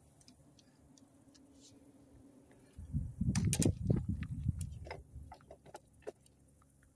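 Handling noise from a phone's microphone rubbing against a T-shirt as the phone is moved. It makes a loud rumbling rustle for about two seconds near the middle, with scattered light clicks and knocks before and after.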